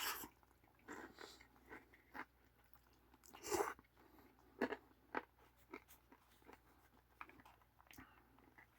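A person chewing a mouthful of ramen topped with a crunchy chili topping of fried beans, split peas and pumpkin seeds, with scattered quiet crunches at irregular intervals.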